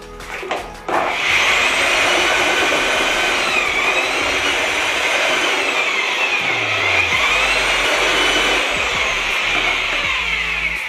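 Parkside 1800 W twin-paddle mortar mixer running in a bucket of wet concrete mix, a loud, steady motor-and-gear whine with the slop of paddles in the mix. It starts about a second in, its pitch dips and recovers twice, and it cuts off near the end.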